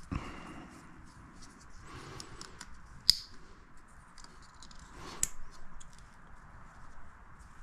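Workshop handling sounds of tools and parts: a dull knock at the start, then small ticks and rattles, with two sharp clicks about three and five seconds in.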